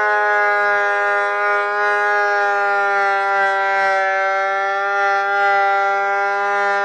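Delta 22-540 12-inch portable planer running with a board feeding through it: a loud, steady whine from the motor and cutterhead under cutting load, holding one pitch.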